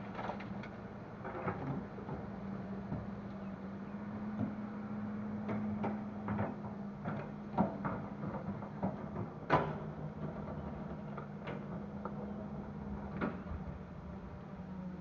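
Hitachi excavator's diesel engine running with a steady hum, with scattered knocks and clanks from soil loading into a dump truck, the loudest about ten seconds in.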